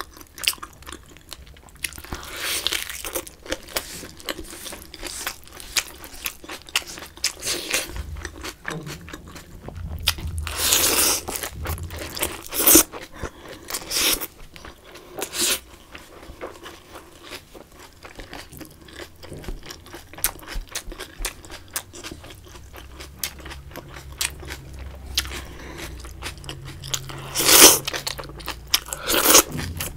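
Close-miked chewing and crunching of a lettuce-wrapped bite of braised pork belly and salad, with wet mouth sounds and short crisp crunches; a louder burst of crunching comes near the end.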